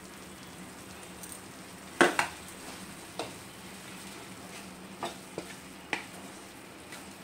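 Wooden spatula stirring paneer and cashew powder in a stainless steel pan, knocking against the pan now and then. The loudest is a sharp double knock about two seconds in, followed by single knocks near three, five and six seconds.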